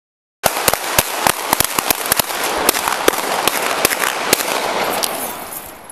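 Body-worn camera audio cutting in abruptly, half a second in, on a rapid irregular string of about twenty sharp cracks and knocks over a loud rushing noise of the camera moving and rubbing. The cracks are thickest in the first two seconds and thin out toward the end.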